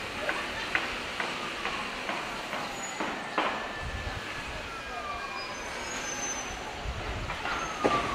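City street traffic noise with a few sharp clicks and a couple of slowly falling whines.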